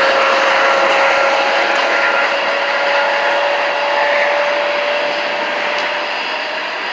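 CSX freight train passing close by: a loud, steady rush of rail noise with a thin steady whine running through it, easing off slightly toward the end.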